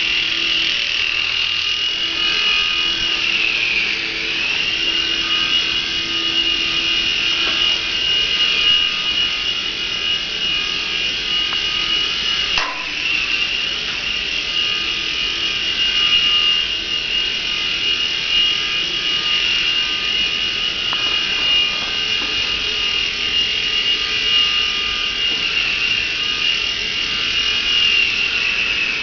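Small model helicopter's electric motor and rotors running with a steady high whine, dipping briefly in pitch twice, with one short click about halfway through.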